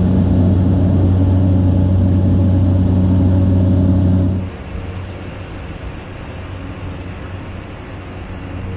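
Cabin noise inside a Cessna Caravan in flight: its single PT6A turboprop engine and propeller make a loud, steady drone. About four seconds in, the sound drops suddenly to a quieter, hissier cabin noise with much less of the drone.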